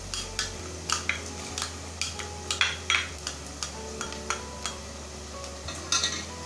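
A spoon scraping ginger-garlic paste out of a small glass bowl and knocking against the bowl and the steel pressure cooker: a run of irregular sharp clicks and taps, loudest about halfway through and near the end.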